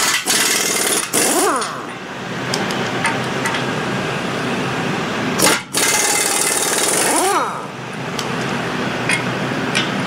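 Pneumatic impact wrench hammering on the bolts of a steel hay spear bracket, in several long bursts with short breaks between them. A brief rising-and-falling whine sounds as the tool spins up or winds down.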